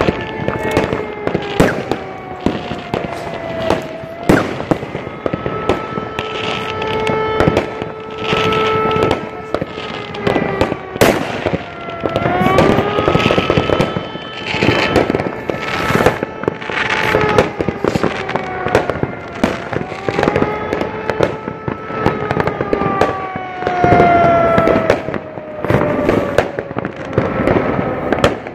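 New Year fireworks going off: repeated bangs of rockets and crackling bursts, some sharp and loud. Under them runs a wailing tone that holds steady for a few seconds at a time and slowly glides down and back up in pitch.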